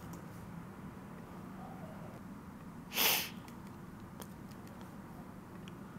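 Low steady room hum with a few faint clicks from typing at the computer, and one short loud breath noise close to the microphone about three seconds in.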